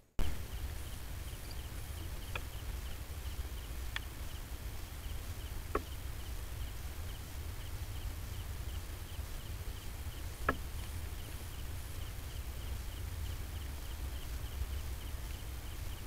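A steady low rumble under an insect chirping faintly in an even, rapid pulse. Four or five sharp single clicks stand out over it, the loudest about ten seconds in.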